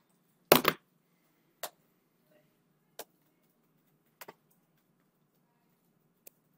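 A short, louder knock-like sound about half a second in, then four isolated sharp clicks spaced a second or more apart over faint room noise.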